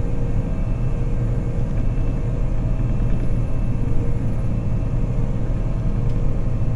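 John Deere combine harvester running steadily: an even low rumble with a faint steady hum over it.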